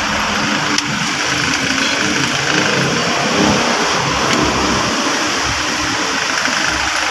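Steady machine running noise, engine-like, with a faint click about a second in and another about four seconds in.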